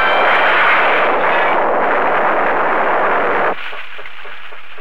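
Loud, dense rush of tornado wind that cuts off suddenly about three and a half seconds in. A teletype printer then clatters at about four or five strokes a second.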